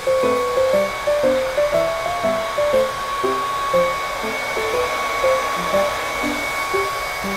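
Hair dryer running with a steady high whine and an even rush of air, under light background music with a bouncy melody.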